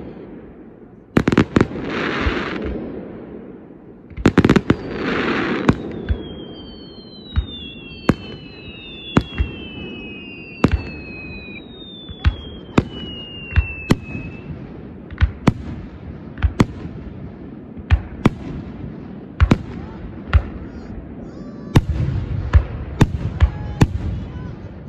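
Fireworks display: shells bursting with sharp bangs, with hissing crackle after the bursts in the first few seconds. Several falling whistles overlap from about six to fourteen seconds in, followed by a run of single bangs about once a second.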